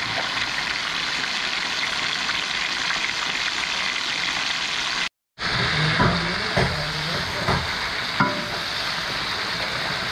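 Whole sea bream frying in hot oil in a pan, a steady sizzle with light crackling. The sizzle breaks off for a moment about halfway through, then goes on.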